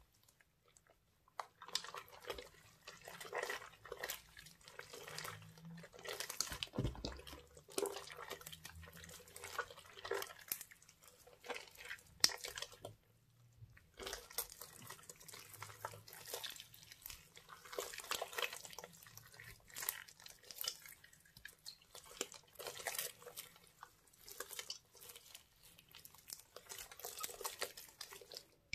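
Wet, sticky slime squelching, popping and crackling as hands squeeze and knead it, in irregular squishes with a short pause about halfway through.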